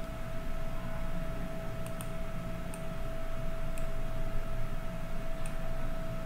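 A handful of faint computer mouse clicks, spaced irregularly, over a steady hiss and constant hum from the recording setup.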